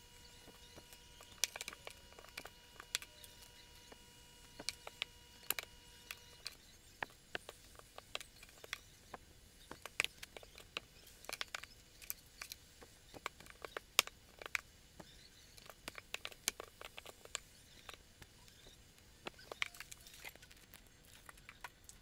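Irregular small clicks, taps and light scratches of hands handling folded cloth napkins and a woven paper-rope basket.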